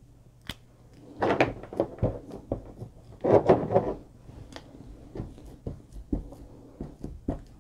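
Stamping supplies being handled on a craft table: a clear acrylic stamp block tapped onto an ink pad and pressed onto card. It is heard as scattered clicks and knocks, with two louder bursts of rapid tapping, about a second in and again about three seconds in.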